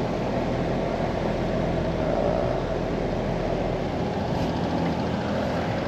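Outdoor air-conditioner condenser fan running with a steady rush of air, while the compressor sits idle when it should be running.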